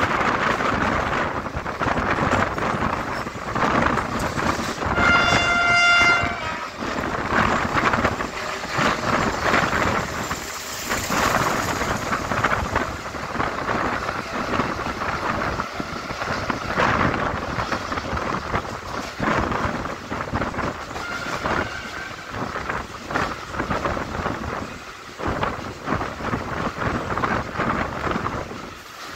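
Moving suburban electric train heard from its open doorway: a steady rumble and rattle of wheels on the track, with wind buffeting the microphone. A train horn sounds once for about a second, about five seconds in.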